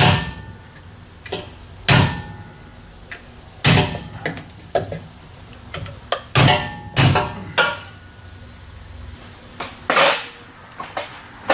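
About eight irregularly spaced hammer blows on metal, some leaving a brief metallic ring.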